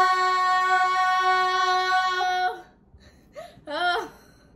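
A girl's voice holding one long sung note, steady in pitch, that cuts off about two and a half seconds in. Near the end comes a short vocal sound that rises and falls in pitch.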